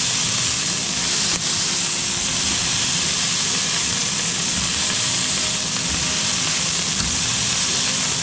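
Ground-beef patty sizzling steadily in a hot frying pan while it is pressed flat with a spatula and spoon, the smashing step of a smash burger.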